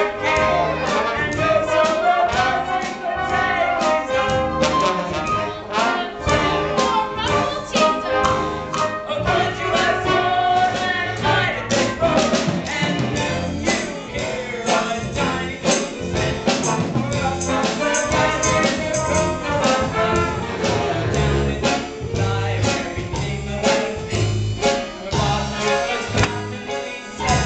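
Upbeat show-tune music with brass and a busy drumbeat, and singing voices over it.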